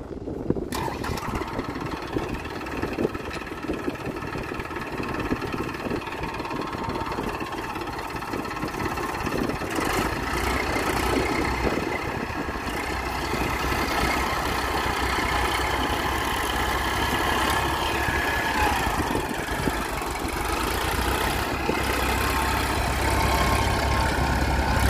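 Diesel tractor engine running steadily, its low rumble growing louder from about ten seconds in.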